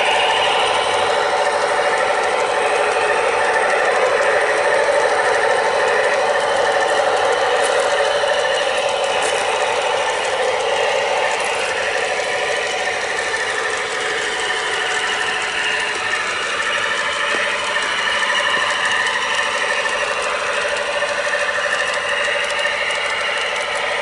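Two USA Trains NW2 G-scale model diesel switchers pulling a freight train on garden railway track: their motors and gear drives running with a steady mechanical rattle, mixed with the wagons rolling on the rails, growing slightly fainter over the second half as the train moves off.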